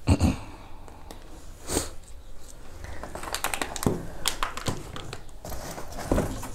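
Packaging being handled: crinkling and rustling, densest in the middle, with a few light knocks, the sharpest just after the start and another just under two seconds in.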